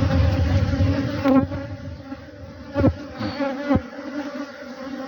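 Honeybee colony buzzing at an opened hive, a steady hum. Three times a single bee's buzz swells close by and slides down in pitch as it flies past.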